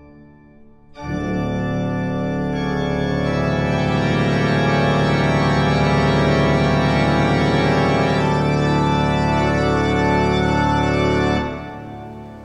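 Organ music: loud held chords that come in about a second in, change a few times, and cut off near the end.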